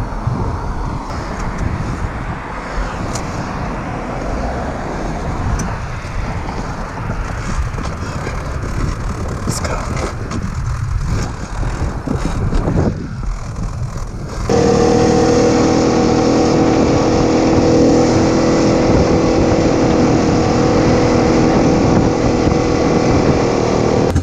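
An ATV on the move at night: rough, shifting vehicle and wind noise at first. A little past halfway it changes suddenly to a steady engine drone running at constant speed along the trail.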